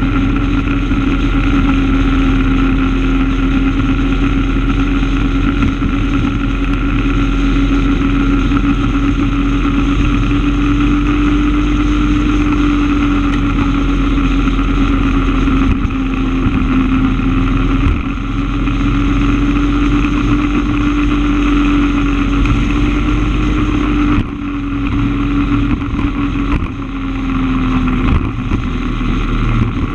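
A vehicle's engine droning steadily at cruising speed over wind and road noise, its pitch wavering slightly. It eases off about four-fifths of the way through as the vehicle slows.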